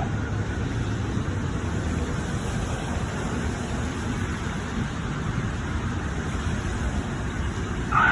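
Steady low rumble and hiss of outdoor background noise, with no distinct tone or event.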